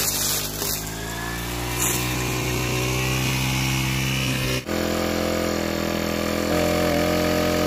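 Petrol brush cutter engine running steadily while its head cuts through tall grass and weeds. About two-thirds of the way in the sound changes abruptly to a steadier run of the same engine with less hiss of cutting.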